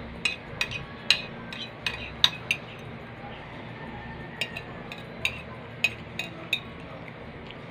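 Metal spoon and fork clinking and scraping against a ceramic plate while eating: a run of sharp clinks over the first two and a half seconds, then another run from a little past halfway that stops about a second before the end.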